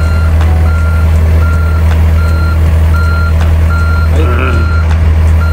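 Backup alarm beeping steadily at one pitch, a little faster than once a second, over the low steady running of a diesel engine.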